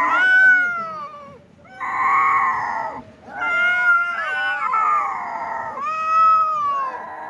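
Cats yowling: a string of long, wavering calls that fall in pitch at their ends, with short breaks between them and two voices overlapping around the middle.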